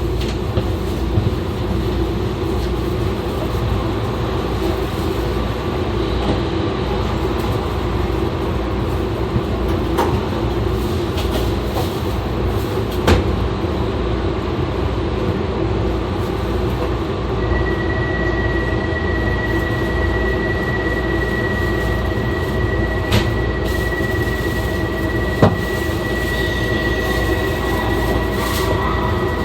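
E2 series Shinkansen running, heard from the car's vestibule: a steady rolling rumble with a few sharp clicks. About two-thirds of the way in, a thin, steady high-pitched squeal joins.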